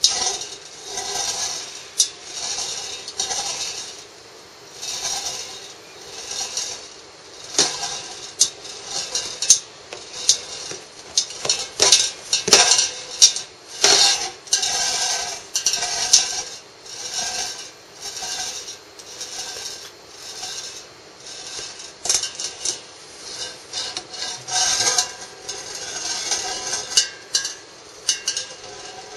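Glass marbles rolling and clinking around inside a metal can, swirled by a cat's paw in repeated rolls about a second apart, with sharp clinks in between.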